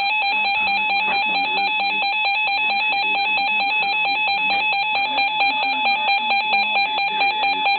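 Reecom R-1630 EAS receiver sounding its electronic warning alarm: a loud, rapidly warbling beep that switches quickly between a low and a high tone. It signals that a severe thunderstorm warning has been received.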